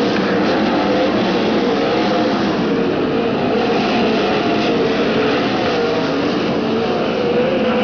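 Several winged sprint cars' V8 engines running on a dirt oval. The engine notes rise and fall as the cars circle the track.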